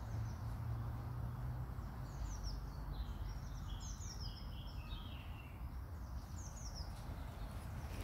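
Songbirds chirping, a run of short high calls, each dropping in pitch, from about two seconds in until near the end. Underneath is a low steady rumble.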